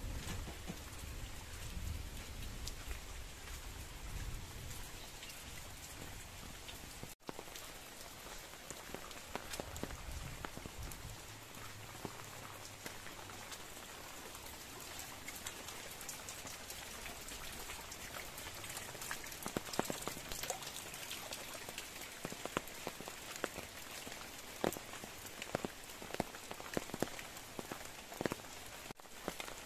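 Steady rain falling, with many sharp, close drips that come thicker and louder from about two-thirds of the way in. A low rumble runs under the rain for the first several seconds.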